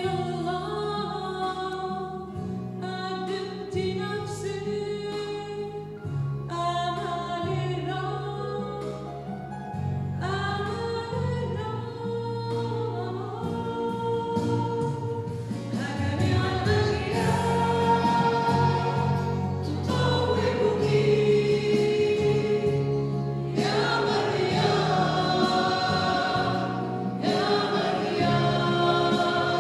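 Mixed choir of men and women singing a Christmas hymn, the singing growing louder about halfway through.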